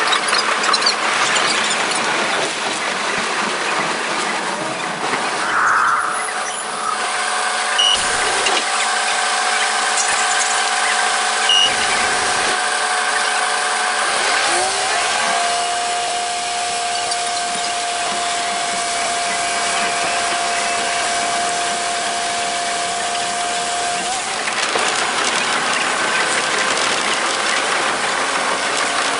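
KiHa 47 diesel railcar running, played back five times faster, so the wheel clatter and engine come out as a rapid, raised-pitch mechanical rattle. About halfway through, the engine note rises and then holds steady, as the railcar pulls away from a station stop.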